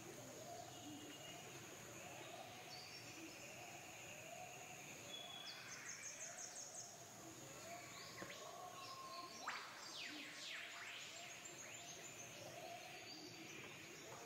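Faint background bird calls: a short low note repeated roughly every 0.7 seconds, with high chirps and trills scattered over it and a brief burst of sharper calls past the middle.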